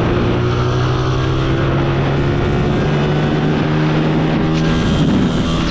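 Honda 125 single-cylinder four-stroke motorcycle engines running hard under load in a drag run, holding a steady pitch that steps up a little about halfway through.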